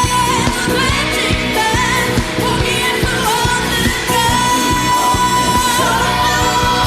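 Women singing a pop song live over a band backing with a steady drum beat, including one long held note with vibrato in the second half.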